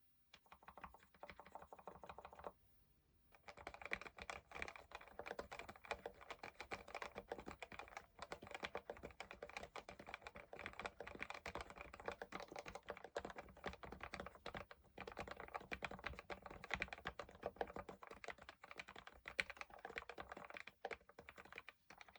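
Fast continuous typing on an Actto B703 mini mechanical keyboard with Outemu Red linear switches: a dense, irregular run of key clacks. There is a brief pause about two and a half seconds in. The switches are stock at first and spray-lubed with Super Lube in the later part.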